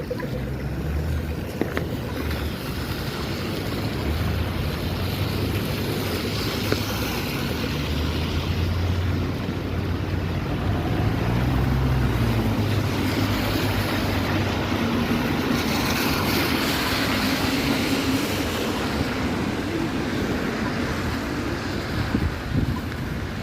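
City street traffic: vehicles running past with engine rumble and tyre noise, one vehicle's hum growing louder through the middle.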